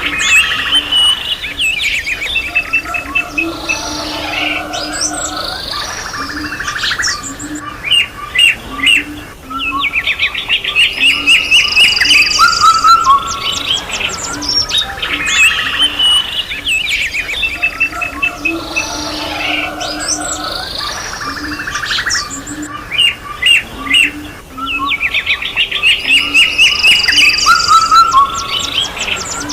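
Several birds chirping and singing together, with quick repeated notes and fast trills, over a row of lower repeated notes. The same stretch of birdsong repeats about every fourteen seconds, as a looped recording does.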